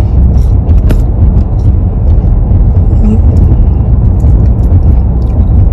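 Steady low road and engine rumble inside a moving car's cabin, with a few faint clicks.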